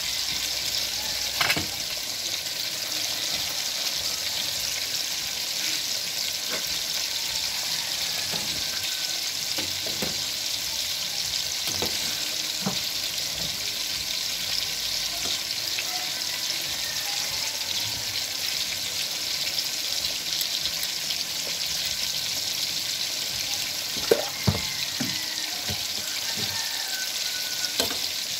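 Steady hiss of a steaming stainless-steel pot on the stove while it is stirred, with a few sharp clinks of the metal ladle against the pot, the loudest two close together near the end.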